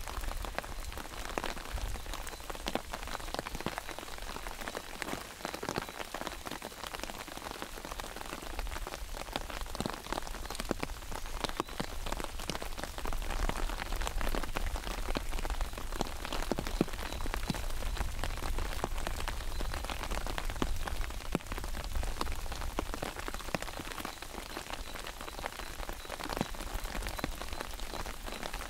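Steady rain falling on an open umbrella held overhead: a dense, even patter of individual drops hitting the canopy, with a faint low rumble underneath.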